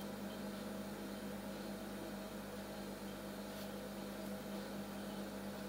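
Steady low electrical hum over a faint even hiss, with no clear handling sounds.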